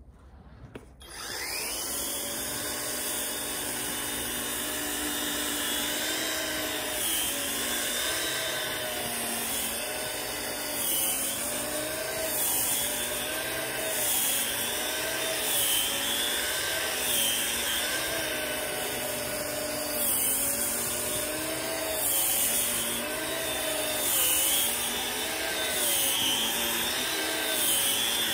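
EGO PH1400 cordless multi-head tool driving its BBA2100 rotating bristle brush through fluffy snow. The motor starts about a second in and spins up, then runs steadily with a whine that dips and recovers in pitch every second or two, over the swish of the bristles throwing snow.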